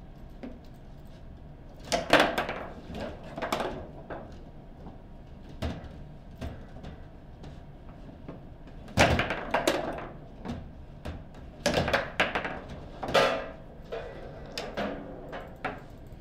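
Table football in play: a series of irregular sharp knocks and clacks as the rod figures strike the hard ball and it hits the table walls, including a shot that goes into the goal.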